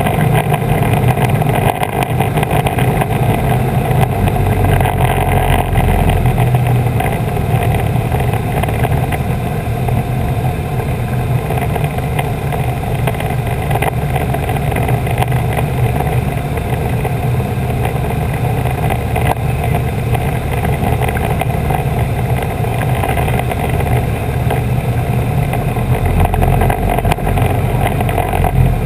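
Piper PA-18 floatplane's piston engine and propeller running steadily in level flight, with rushing air over the microphone.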